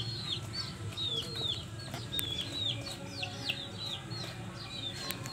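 A budgerigar chirping: a run of short, high chirps, each sliding downward, about three a second.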